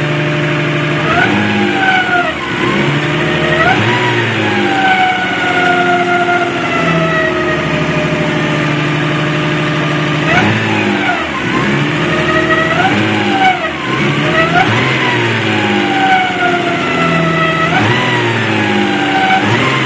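Nissan RB26DETT twin-turbo straight-six being revved: the pitch jumps up in quick blips about a second in, then falls slowly over several seconds, and the pattern repeats about ten seconds in and again near the end. The engine is the one the owner calls out for a strange noise, but what that noise is cannot be told.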